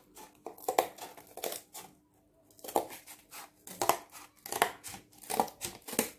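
Scissors cutting through cardboard: a series of short crunching snips, about two a second, with a brief pause about two seconds in.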